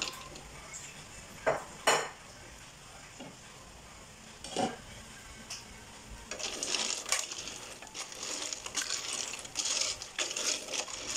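A few single sharp knocks, then, from about six seconds in, a wooden spatula stirring soup with shellfish in a stainless steel pot, scraping and clattering against the pot in quick, irregular strokes.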